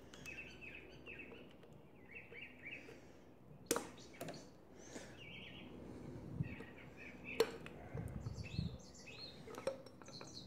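Quiet handling of metal engine parts as the stock camshaft is slid out of a Kawasaki Z125 Pro cylinder head: two sharp metallic clicks about four seconds apart and a few soft thuds. Faint birds chirp in the background.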